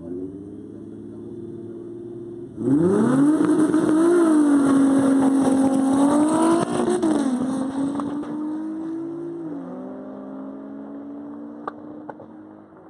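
Two drag-race cars, one of them a turbocharged six-cylinder Audi A3, held at raised revs on the start line, then launching hard about two and a half seconds in. The engine pitch climbs with quick gear changes, then fades as the cars run away down the strip.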